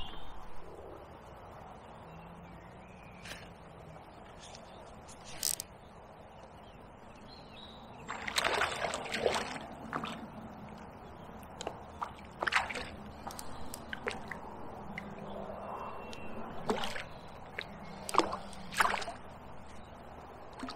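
Light sloshing and small splashes of water at the bank, with scattered sharp clicks and knocks from about halfway through.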